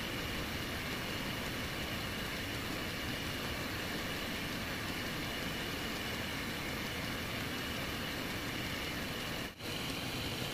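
Belt-driven lathe shaft running steadily while a wooden bowl is held against the spinning sanding disc on its end, a constant machine noise with wood rubbing on the disc. The noise briefly drops out near the end.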